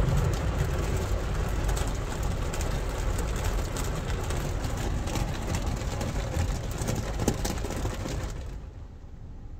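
Ryko Voyager II rollover car wash, heard from inside the car: water spraying and Foambrite foam brushes scrubbing against the body and glass, a steady rain-like hiss with crackles. Near the end the spraying and scrubbing stop abruptly, leaving a low steady hum.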